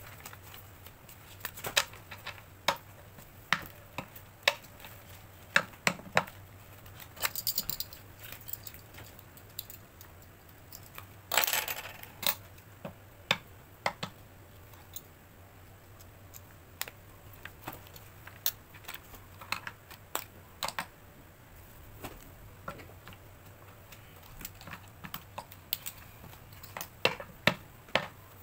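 Stacks of paper sheets handled and tapped on a paper cutter's mat: irregular sharp taps and clicks, with a brief rustle of paper about eleven seconds in.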